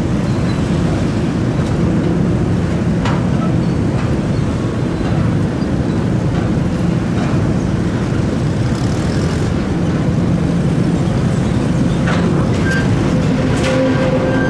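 Steady loud low rumble of a vessel's engine with water and wind noise, a faint steady hum over it, and a few faint clicks.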